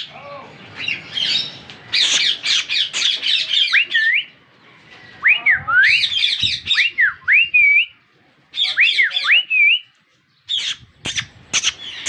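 Indian ringneck parakeets calling: bursts of harsh squawks and chatter, and in the middle a run of repeated whistled calls that sweep sharply up in pitch.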